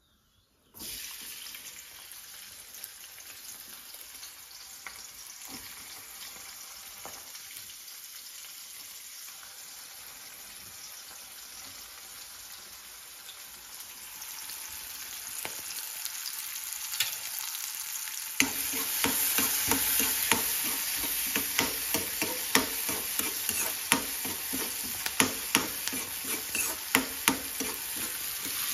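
Chopped onions and green chillies sizzling as they drop into hot oil in a kadai, then frying steadily. Later the sizzle grows louder and a steel spatula stirs the pan, its scrapes and clicks against the metal coming thick and fast.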